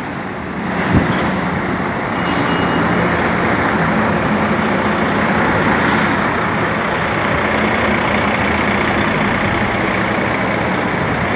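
Steady heavy road traffic: a constant rush of vehicle noise with the low drone of truck and bus engines running close by.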